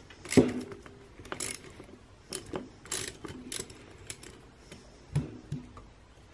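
Ratchet and 8 mm socket working bolts into the housing of an electric trolling motor: irregular clicks and knocks of the tool, with the loudest knock about half a second in and another sharp one near the end.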